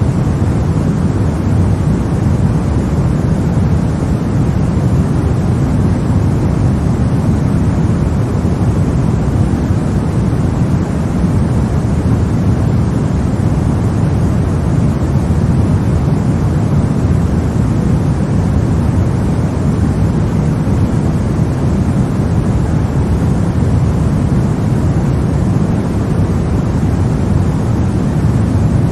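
Baby-sleep white-noise track: a steady, unchanging deep rushing noise with most of its weight low down and little hiss on top.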